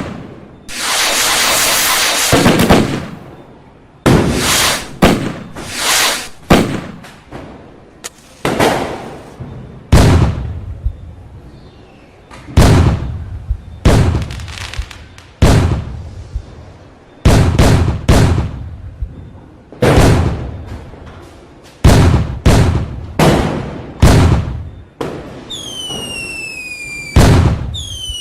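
Fireworks going off in quick succession: sharp bangs roughly once a second, each trailing off in a rumble. Near the start there is a two-second hissing burst, and near the end two whistling fireworks sound with falling pitch.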